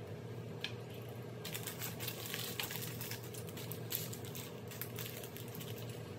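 Small plastic Lego pieces clicking and tapping as they are sorted and snapped together on a wooden table, with a plastic parts bag crinkling. The clicks come thick and irregular from about a second and a half in.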